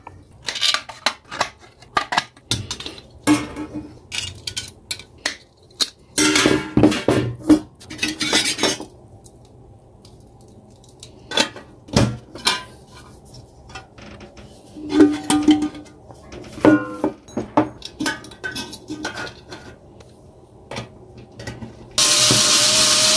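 Thin tinplate paint-can lid and can being cut and bent by hand: scattered clanks, clicks and scraping of sheet metal, some with a short ring. Near the end a cordless electric screwdriver whirs steadily for about a second as it drives a screw into the lid.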